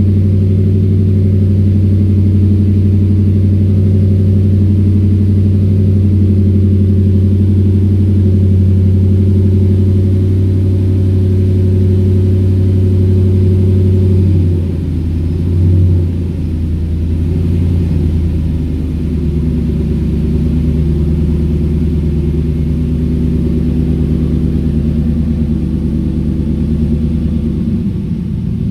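The 5.4-litre V8 of a 2003 Ford SVT Lightning, fitted with a 2.3 Whipple supercharger, idling steadily. About halfway through, the idle steps down to a lower note after a brief rise, then holds steady.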